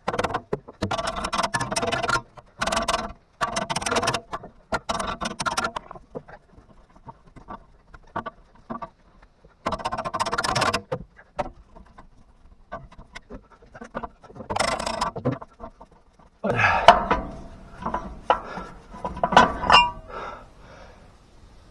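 Metal tapping and scraping on the Unimog's rusted spare-wheel retaining bar as it is worked loose with hand tools. The sound comes in irregular short bouts, some ringing, and gets busier near the end.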